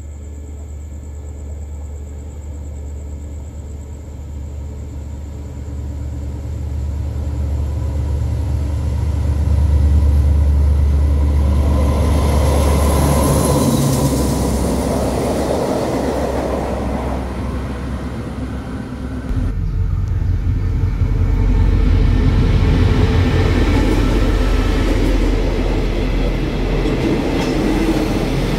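Diesel-electric locomotive's engine drone swelling as it draws in, then the train running past with rumbling wheels and rail noise. After an abrupt change about two-thirds of the way through, a steady low rumble of passenger carriages rolling along the track.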